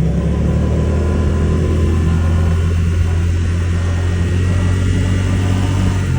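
Car under way: a steady low engine hum with a faint higher whirring whine above it, rising slightly in pitch. This is the whir the car has made when accelerating since it was new.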